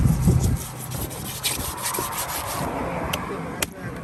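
A large knife scraping and slicing along a big rohu's scaly skin, cutting it away from the flesh on a wooden chopping block. A steady rasping runs through, with a few low knocks at the start and several sharp clicks later.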